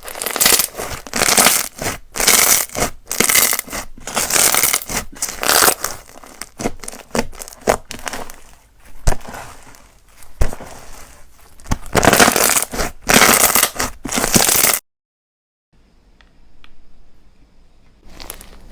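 Slime being squished and stretched by hand, giving crackly, crunchy bursts with sharp pops, roughly one a second. About fifteen seconds in the sound cuts out completely for about a second, comes back faint, and grows louder again near the end.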